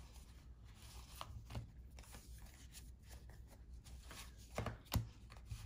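1991-92 Fleer basketball trading cards being handled and sorted: faint slides of card against card and light ticks, with a sharper click about five seconds in.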